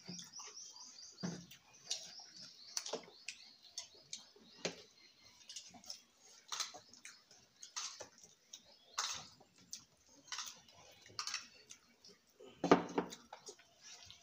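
Close-up eating sounds: chewing and wet mouth smacks, with scattered sharp clicks. A rapid high chirping series right at the start, and a louder knock near the end.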